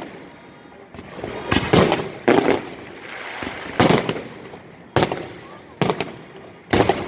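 Festive fireworks salute: aerial shells bursting in sharp bangs at uneven intervals, about seven of them, with a noisy wash lingering between the bangs.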